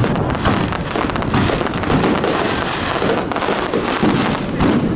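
Aerial fireworks display: shells bursting one after another, a dense, unbroken run of many short bangs and crackles.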